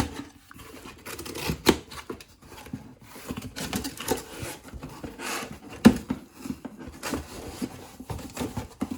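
Plastic wrap being cut and torn off a new paint-sprayer pump, crinkling and rustling, with sharp knocks from handling the part, loudest about two seconds in and again about six seconds in.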